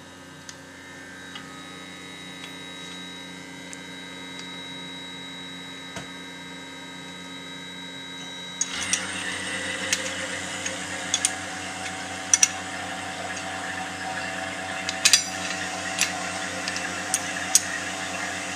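Vacuum pump running with a steady hum as it begins pumping down a small vacuum chamber from atmospheric pressure. About nine seconds in the hum becomes louder and fuller, and sharp metallic clinks of a wrench on the chamber's clamps come every second or so.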